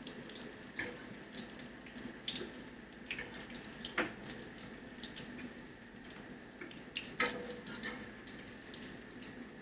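Ground-fish patties frying in shallow oil in a frying pan: a steady sizzle with a few sharp clicks scattered through it.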